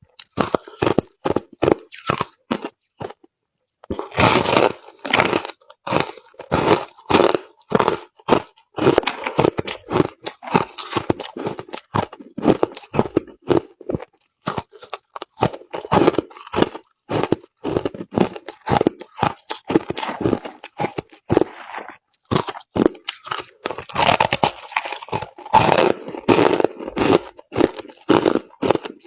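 Crushed ice being chewed close to the microphone: a steady run of irregular crunches, with a brief pause twice.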